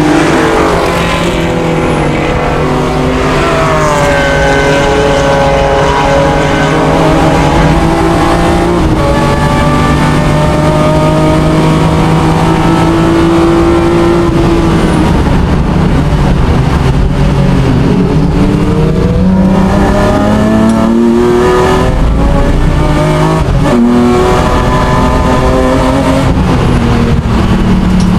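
BMW M3 race car's engine at racing speed, with tyre and wind noise. Its pitch falls early, holds steady for several seconds, then climbs and drops again several times as it runs up through the gears.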